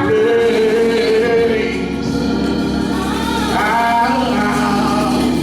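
A slow gospel song: a singer stretches each word into long held notes over a sustained organ accompaniment.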